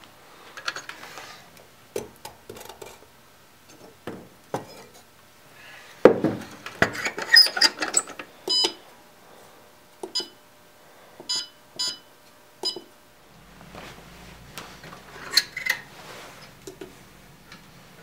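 Clicks and metal clatter of handling at an Evenheat electric heat-treating oven, then its Set-Pro digital controller beeping about five times, short single beeps as its keypad buttons are pressed. A low steady hum comes in near the end.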